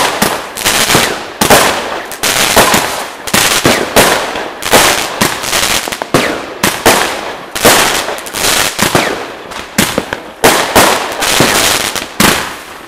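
Fireworks going off: a dense, continuous string of loud bangs and crackles, several a second with hardly a pause.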